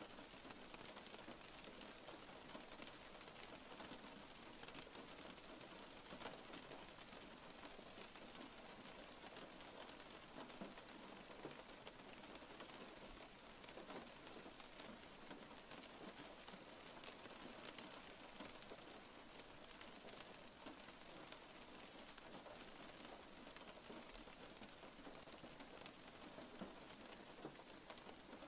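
Faint, steady rain falling, a continuous hiss dotted with countless small drop ticks, unchanging throughout.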